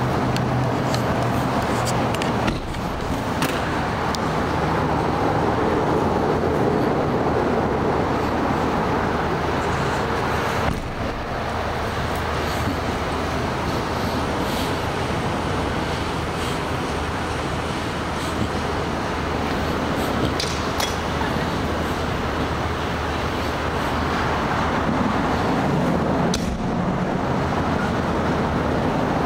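Steady road-traffic noise with vehicle engines running close by, a low hum under an even rush. There are a few brief knocks.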